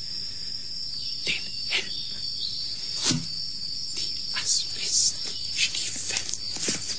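Summer-night ambience of crickets chirping steadily, with scattered sharp clicks and a low thump about three seconds in.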